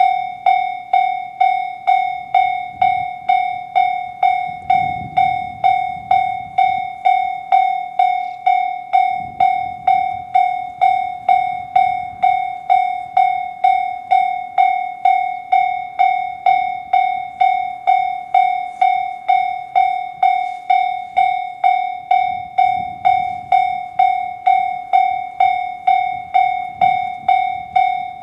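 Japanese level-crossing alarm in the JR standard sound, an electronic bell striking about twice a second, each note dying away fast; it signals that a train is approaching and the barriers are down. Faint low rumbles rise and fall beneath it a few times.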